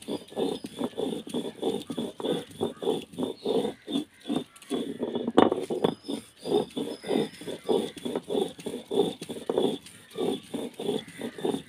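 Stone roller of an ammikkallu grinding slab rolled forcefully back and forth over a coconut and kanthari-chilli chutney paste. It makes a rough grating scrape about three times a second, with one sharper knock of stone on stone about five seconds in.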